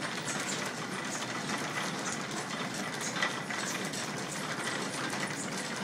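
Overhead line shafting in a machine shop running, its belt-driven pulleys turning with a steady mechanical noise and many light ticks.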